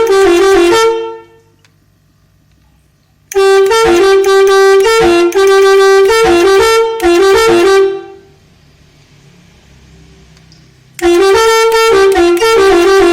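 Telolet horn, an electric multi-tune horn module sounding through three horn trumpets, playing short melodies of stepped notes. There are three bursts: one ending about a second in, a longer tune from about 3 to 8 seconds, and another starting about 11 seconds in.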